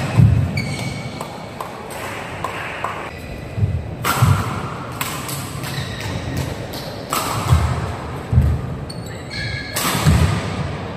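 Badminton play on an indoor court: sharp racket strikes on the shuttlecock, deep footfalls of players lunging, and short high shoe squeaks on the court floor, echoing in a large hall.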